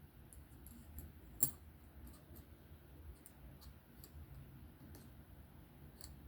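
Light clicks and taps of small titanium and steel folding-knife parts being handled and fitted together during reassembly, with one sharper click about one and a half seconds in.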